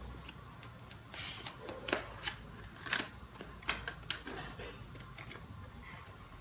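Cardboard and plastic toy packaging being handled and slid open: a scatter of sharp clicks and crackles with a short rustle, the loudest clicks about two and three seconds in.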